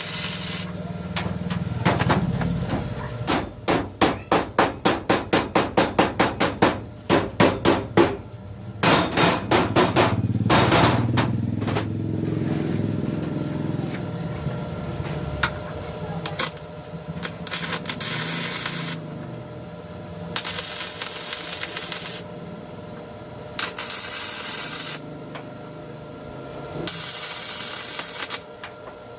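Hammer blows on metal bodywork: a quick, even run of strikes at about three a second, then a few more scattered blows. Later come several separate stretches of steady hissing noise, each a second or two long.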